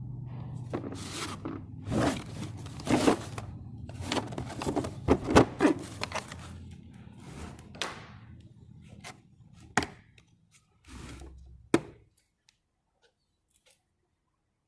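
Hand-handling of a new set of impact sockets and their packaging: irregular clicks, knocks and rustling, with a few sharp metallic clicks near the end, then near silence for the last couple of seconds.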